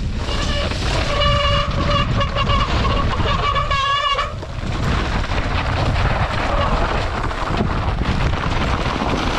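Mountain bike descending a rough trail: wind buffeting the helmet camera's microphone over the rumble of tyres and bike on the ground. For the first four seconds a high steady squeal sounds over it, wavering just before it stops.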